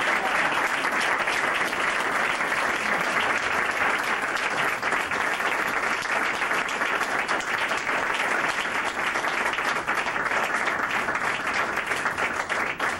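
A roomful of dinner guests applauding steadily, many hands clapping at once, as an award winner walks up; the clapping dies away just after the end.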